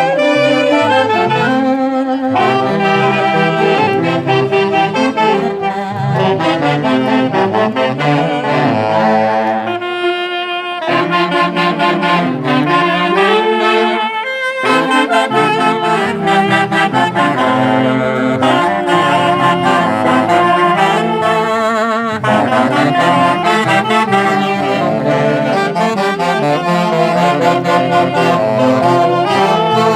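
A festival band playing loudly, led by saxophones in several parts with a brassy edge, over a steady bass line that briefly drops out twice partway through.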